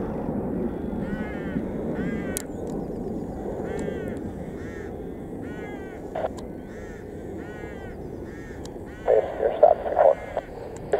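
A bird giving short, harsh calls in quick groups, over and over, above a steady low rumble of distant jet aircraft.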